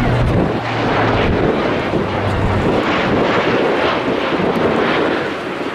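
A C-130 Hercules four-engine turboprop transport flying past, its engines and propellers making a loud, steady drone. A low propeller hum fades about a second in.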